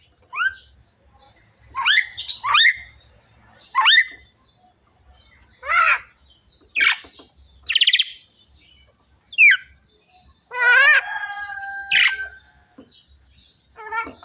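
Javan myna calling: a string of short gliding whistles and harsher notes, roughly one a second, with one longer call holding steady tones about eleven seconds in.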